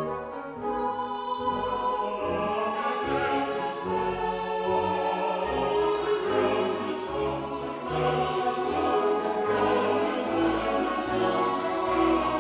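Background music: choral singing over orchestral accompaniment, with slow, sustained chords and a bass line that moves every second or two.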